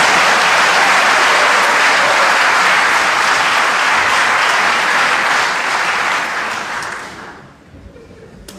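Arena audience applauding, building quickly out of a few scattered claps, holding steady, then dying away after about seven seconds.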